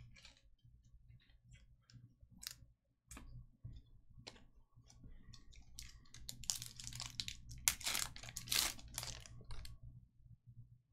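Foil trading-card pack wrapper being torn open and crinkled, preceded by light clicks of cards being handled. The tearing crinkle comes in about six seconds in and is loudest a couple of seconds later.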